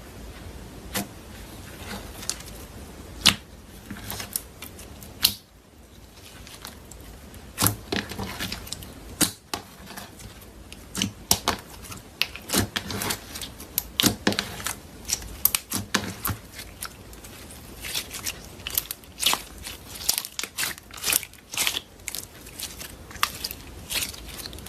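Slime being squished and stretched by hand, giving off irregular sticky pops and clicks that come more often after the first few seconds.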